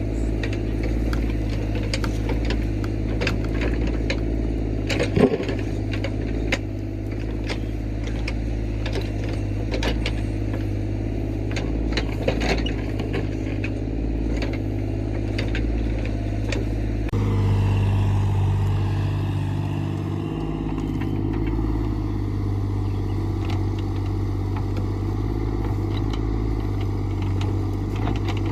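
Excavator's diesel engine running steadily, with scattered knocks and clanks over the first half or so. About 17 seconds in the engine note shifts and grows a little louder.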